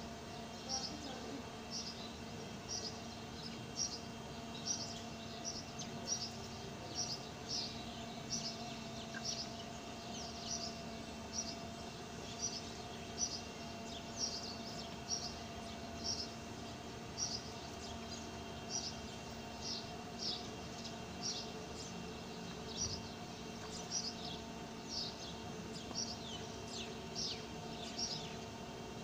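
Hand-milking a Gir cow into a steel bucket of frothy milk: short hissing squirts of milk into the bucket in an even rhythm, about one and a half a second.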